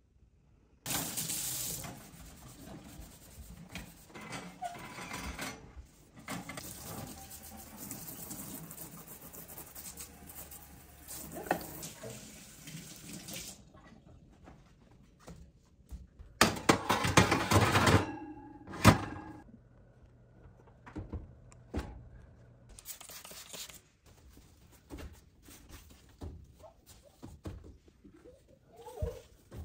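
Water running in a kitchen sink for about twelve seconds, then a louder burst of clattering with one hard thunk, followed by scattered light knocks and handling sounds.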